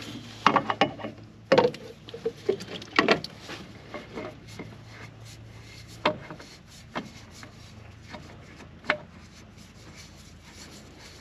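Scattered clicks, knocks and rubbing of hands working a spin-on hydraulic filter onto its mount on a tractor. The handling is busiest in the first three seconds or so, then thins to a few isolated knocks.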